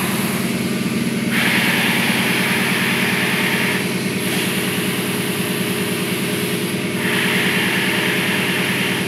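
A pneumatic sheet bending machine's air cylinders are worked by a foot-pedal valve. Compressed air hisses twice, each time for about two and a half seconds, over a steady motor hum.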